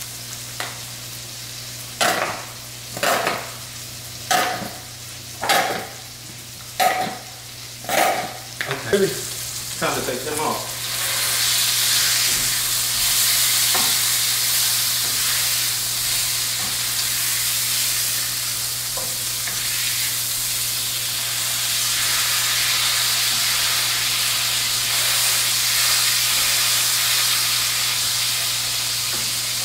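About eight short utensil strokes against a bowl or pan, roughly one a second, then food starts sizzling in a hot pan about eleven seconds in and keeps frying steadily.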